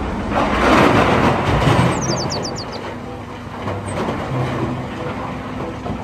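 Large wheel loader's diesel engine running heavily while it tips a bucket of soil into a dump truck, with a loud rush of noise in the first couple of seconds as the load goes in. Birds chirp briefly partway through.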